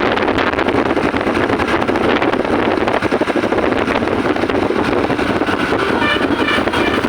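Large bus diesel engine running loud and steady. About six seconds in, a melodic multi-note telolet horn starts to sound over it in quick repeated notes.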